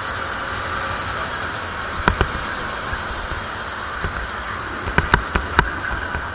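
Onboard sound of a CRG 270 cc four-stroke rental kart at speed: a steady rushing hiss of wind with the kart's engine muffled beneath it. Sharp knocks come twice just after two seconds in, once near four seconds, and four in quick succession around five seconds in.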